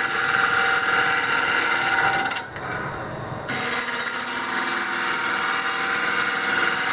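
A gouge cutting a spinning oak table-leg blank on a Record Power wood lathe: a steady shaving noise of wood being cut away. About a third of the way in the cut breaks off for about a second, then resumes.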